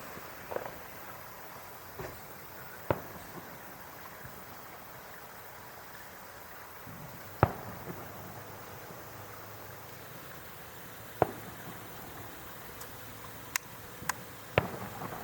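Fireworks going off: scattered sharp bangs at irregular intervals, about eight in all, the loudest about halfway through, over a steady background hiss.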